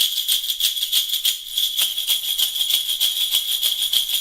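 Small children's sleigh bells shaken in a quick, steady rhythm, about five or six bright jingling strokes a second, projecting well.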